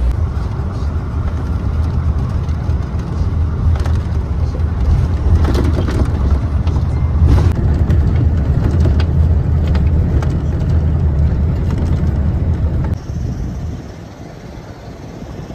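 Steady low rumble of a moving bus, road and engine noise heard from on board, with a few scattered clicks. It drops to much quieter outdoor ambience about thirteen seconds in.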